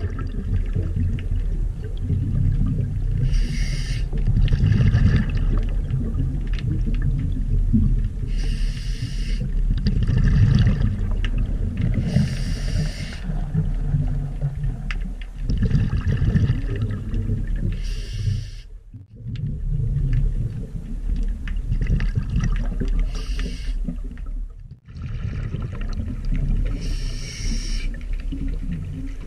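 A scuba diver breathing through a regulator underwater: a hissing inhale every few seconds, alternating with bubbling bursts of exhaled air.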